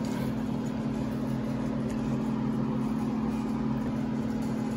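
A steady, even mechanical hum, like a motor or appliance running, with a couple of low held tones.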